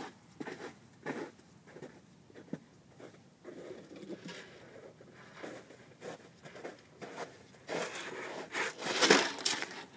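Footsteps crunching through snow, faint and spaced at first, then louder and closer near the end, mixed with rustling and crinkling as empty plastic bottles are carried.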